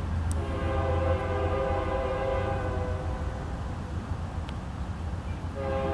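Horn of an approaching Norfolk Southern freight locomotive, out of sight, sounding a chord of several notes. One long blast fades out about halfway through, and a second starts near the end, over a steady low rumble.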